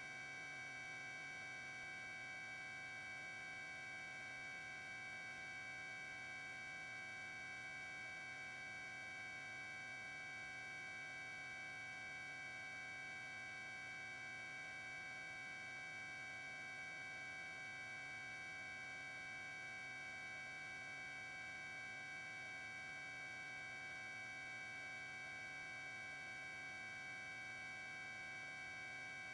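Faint steady electrical hum with a few high, unchanging whine tones, the background noise of a helicopter's intercom audio feed.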